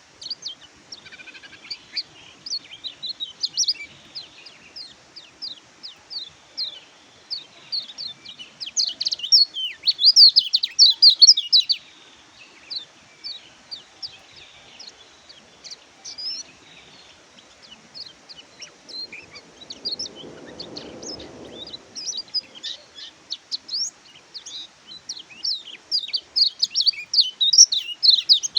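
Kecial kuning (Lombok white-eye, pleci) singing a rapid, high twittering song of quick chirps. The song comes in dense, louder bursts about a third of the way in and again near the end, with sparser notes between.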